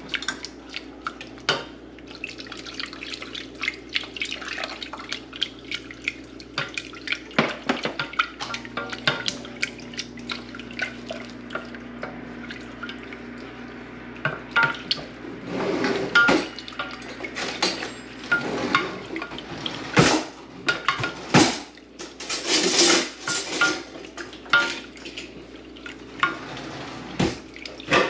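A whisk clicking and scraping against a saucepan as milk is added a little at a time to a butter-and-flour roux and whisked in, over a steady low hum. From about halfway through the whisking gets louder and wetter, with splashing of the liquid.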